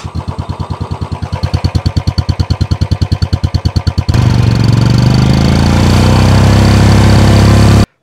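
Motorcycle engine idling, its exhaust pulsing evenly through a turbo-whistle insert in the silencer, with only a faint thin whistle over it. About four seconds in it changes abruptly to a louder, steady engine run with the high whistle a little clearer, then cuts off just before the end.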